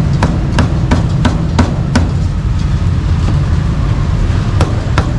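Meat cleaver chopping grilled beef on a thick round wooden chopping block, sharp knocks about three a second, pausing for a couple of seconds midway and then starting again near the end. A steady low rumble runs underneath.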